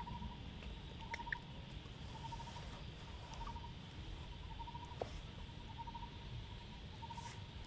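Outdoor ambience with a small animal calling in short, even trills, one pitch, about once a second, over a low rumble, with a few faint clicks.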